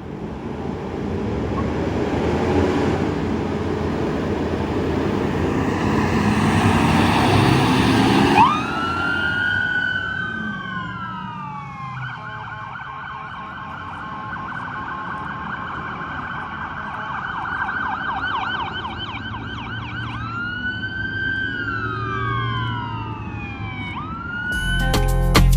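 A heavy vehicle's rumble grows louder for the first eight seconds. A fire truck's siren then sounds a wail, sweeping up and down, switches to a fast yelp for several seconds, and goes back to the wail. Music starts abruptly near the end.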